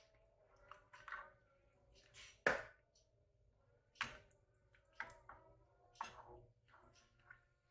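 Thick coconut curry being stirred in a metal saucepan with a plastic spoon: wet sloshing and short knocks and scrapes of the spoon against the pot, repeating about once a second, the loudest about two and a half seconds in.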